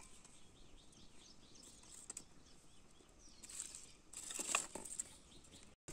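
Faint outdoor quiet with small birds chirping, a run of short high chirps, followed by a few brief rustling, crackling noises.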